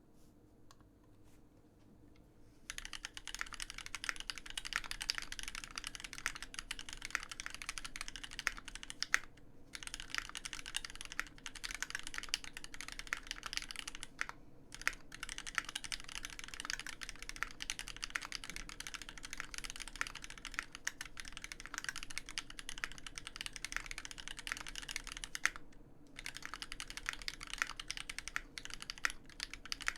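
Fast, continuous typing on an Alpine65 custom mechanical keyboard with a brass plate, lubed Marshmallow switches and GMK keycaps: a dense run of keystroke clacks. It begins a couple of seconds in and stops briefly three times.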